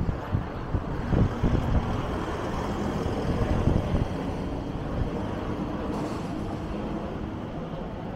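Street traffic: a motor vehicle running close by, with gusty low rumbles in the first half that settle into a steadier engine hum.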